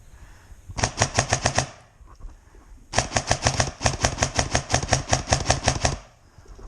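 Airsoft gun firing on full auto, about ten shots a second: a short burst about a second in, then a longer burst of about three seconds.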